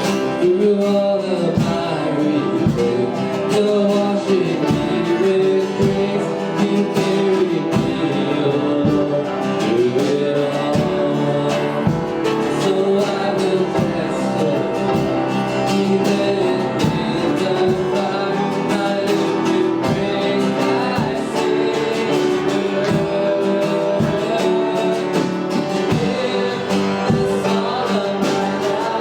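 Worship song: singing over guitar and other instruments, with a steady beat.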